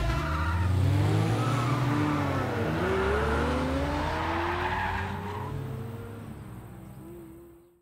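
A car engine accelerating away, its pitch rising through the revs as the sound fades into the distance, then cutting off.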